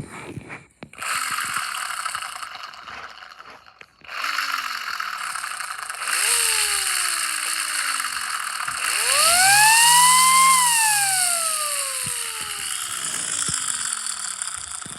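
Miniature 3D-printed model of a Chrysler air raid siren wailing over a steady rushing whir. A few short falling wails come first; then, about nine seconds in, it climbs quickly to a high peak and winds slowly down.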